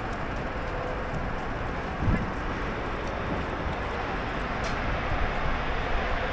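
Busy city street ambience: a steady wash of traffic noise with passers-by's voices, and a short low thump about two seconds in.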